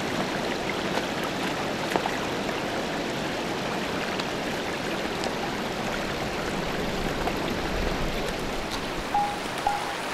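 Shallow creek water running steadily, with scattered faint footsteps in snow and a few short high notes near the end.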